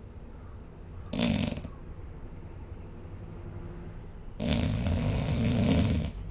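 Snoring in sleep: a short snore about a second in, then a longer snore with a fast fluttering rattle lasting nearly two seconds.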